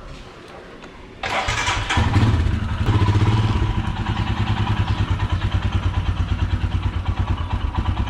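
Motorcycle engine starting about a second in: it catches, revs briefly, then settles into a steady, evenly pulsing idle.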